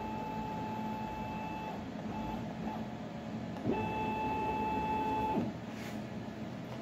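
Stepper motors of an AVID CNC Router Parts Desktop Pro gantry whining as the machine is jogged into position. One move ends about two seconds in, and a second, louder move runs for about a second and a half a little past the middle.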